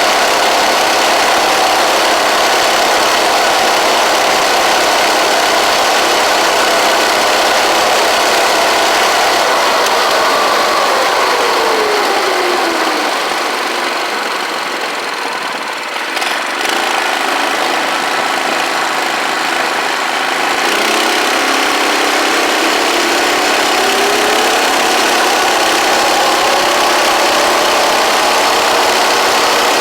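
Predator 212cc single-cylinder engine driving the ATV at speed. It drops in pitch a third of the way through, runs low for several seconds while the ATV slows to turn around, then revs back up. Wind rushes over the microphone throughout.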